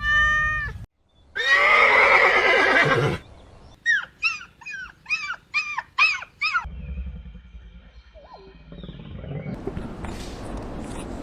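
Horse whinnying: a loud neigh followed by a run of short quavering notes, then quieter rustling noise.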